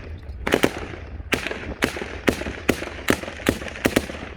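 Celebratory gunfire: a string of about ten single loud shots, roughly two a second at uneven spacing, each followed by a short echo.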